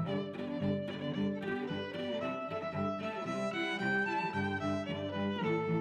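Background music led by bowed strings, a violin melody over lower sustained notes, with a steady pulse of changing notes.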